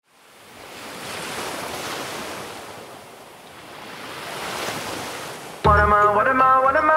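Ocean surf fading in from nothing and washing in two slow swells. A little under six seconds in, upbeat music cuts in over it with a strong bass beat and chords, louder than the surf.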